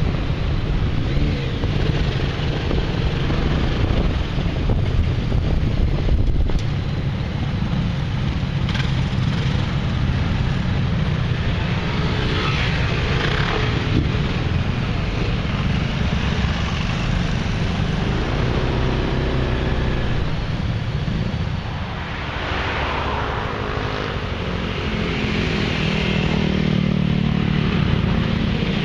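Engines of a group of large motor scooters running on the road, with wind buffeting the microphone, strongest in the first few seconds. After that, scooter engines swell and fade several times, their pitch rising and falling.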